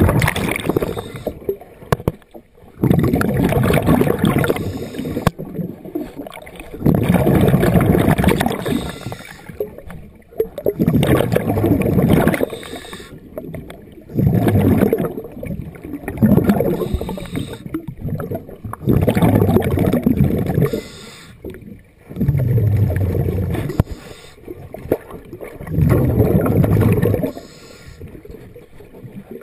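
Underwater breathing of a diver: bubbles bursting from the regulator exhaust on each exhale, in gurgling bursts every three to four seconds with quieter gaps between.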